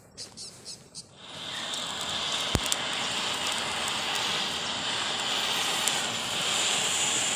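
Handheld gas blowtorch flame hissing steadily as it is played over a dead snake's skin to singe it, starting about a second in, with one sharp click a moment later. Insects chirp in a quick rhythm before the torch starts.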